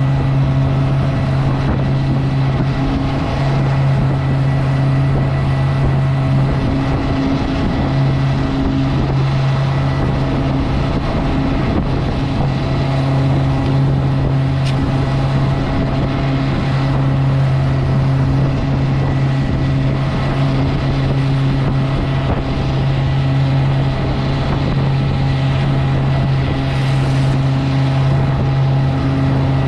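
Motorboat engine running steadily with an even, low hum.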